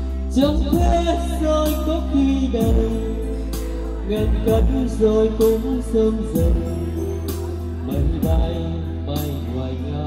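A man singing into a handheld microphone over amplified instrumental backing music with a beat.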